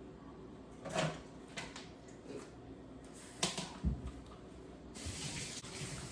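Kitchen containers and utensils knocked and set down a few times while cake batter ingredients are measured, then a steady hiss starting near the end, as of liquid being poured or run.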